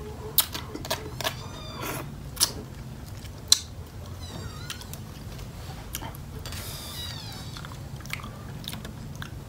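Close-up chewing and biting of blue swimmer crab from a papaya salad, with several sharp cracks of crab shell in the first four seconds, the loudest a little past three seconds in, then quieter chewing.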